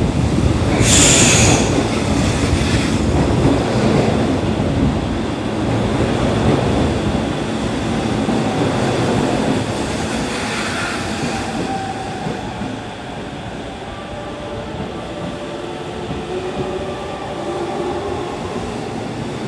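JR East E231-800 series electric train arriving and slowing, its wheel and running noise fading as it loses speed, with a brief sharp high-pitched noise about a second in. From about twelve seconds a faint whine in several tones comes through: the Mitsubishi three-level IGBT VVVF inverter and MT73 traction motors under braking.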